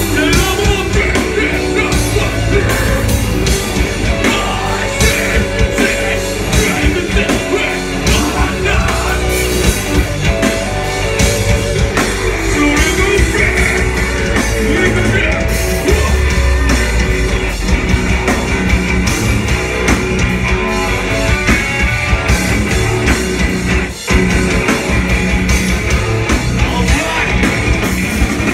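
A hardcore band playing live: drums, electric guitars and bass with a vocalist singing, heard from within the crowd. The music breaks off for a moment near the end.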